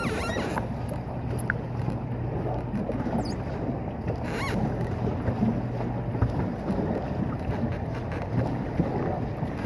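Pedal paddle boat moving across a lake, its paddle wheel steadily churning and splashing the water, with wind buffeting the microphone. A low steady hum runs underneath and stops about six seconds in.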